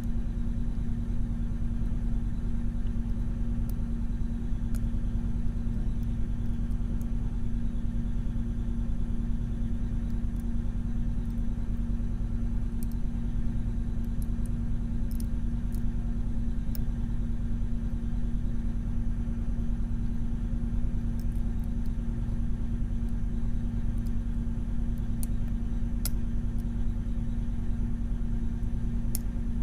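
A steady low hum with one held tone runs throughout. Faint scattered small clicks sit over it, the pick and tension tool working the pins of a Mul-T-Lock Junior pin-in-pin lock.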